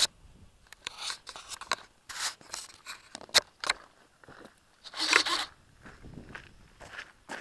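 Irregular scraping, clicking and crunching as a person handles the RC Twin Otter model plane and steps on gravel beside it, its electric motors not running. The longest, loudest scrape comes a little past the middle.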